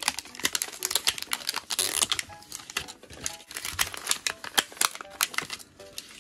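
Small plastic miniature pieces and capsule parts being handled, making a quick, irregular run of light clicks and rattles.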